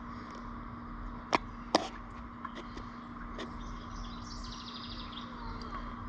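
Two sharp clicks, close together, about a second and a half in, over a steady low hum. Faint high chirps, like a bird, come later.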